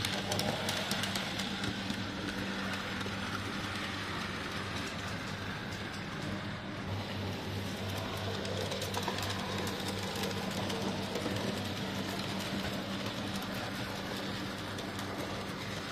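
OO-gauge model locomotives running on track, their small electric motors giving a steady hum, with light clicking of the wheels over rail joints.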